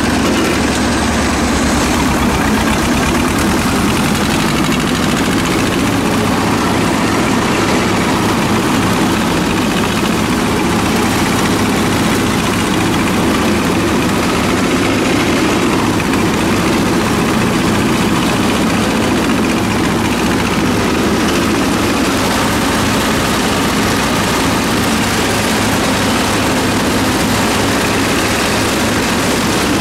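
Belarus 250 (T-25) tractor's two-cylinder air-cooled diesel engine running steadily and loud at working throttle, driving a PTO mower.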